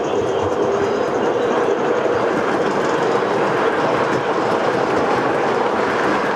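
O gauge model train running past on the layout track: a steady running noise of motor and wheels on rail, with faint irregular clicks.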